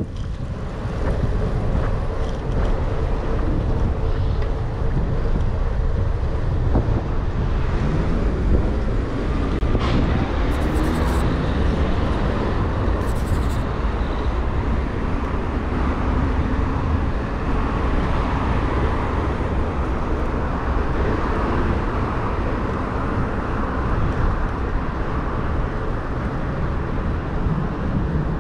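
Steady rush of wind on the microphone of a bicycle rider's camera while riding, with road traffic running alongside.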